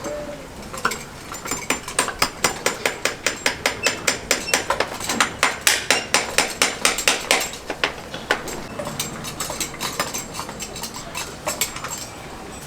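A farrier's hammer tapping in quick, even strokes, about four or five a second for several seconds, then slowing to a few scattered taps.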